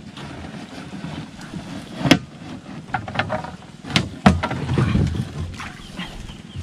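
Someone climbing over the side of an outrigger canoe into the water. There are sharp knocks on the hull and boom about two seconds in and twice around four seconds in, then sloshing and splashing as the body goes into the water.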